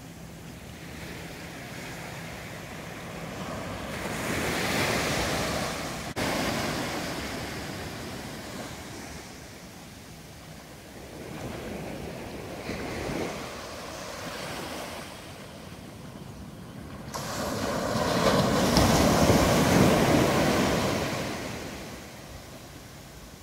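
Small waves breaking and washing up a sandy shore, the rush of surf swelling three times, the last time loudest.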